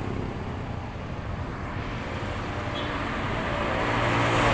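Road traffic: a motor vehicle's engine running, growing louder toward the end.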